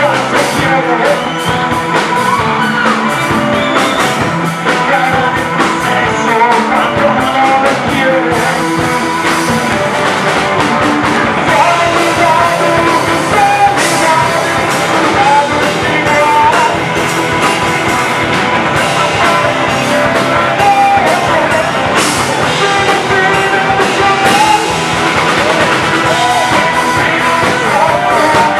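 Live punk rock band playing: a man singing into a microphone over electric guitar, bass guitar and drums.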